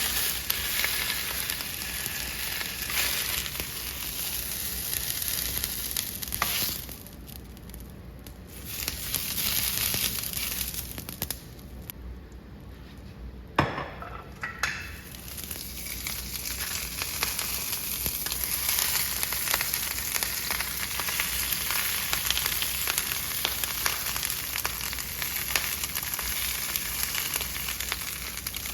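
Bok choy sizzling and frying in sesame oil in a pan. The sizzle drops quieter twice partway through, with a single sharp click near the middle.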